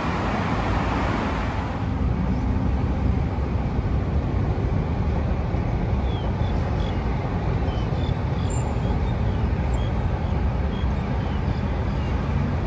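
Steady city road traffic: a continuous low rumble of cars and other vehicles driving past, with one louder whoosh of a passing vehicle fading out in the first two seconds.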